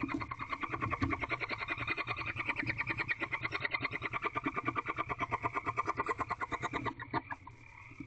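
A frog calling in a fast, even pulsing trill that breaks off about seven seconds in, leaving a fainter steady high tone.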